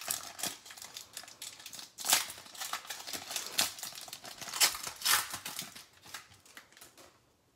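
Foil wrapper of a trading-card pack being torn open and crinkled by hand: irregular crackling with sharp loud crackles about two seconds in and again around five seconds in, dying away near the end.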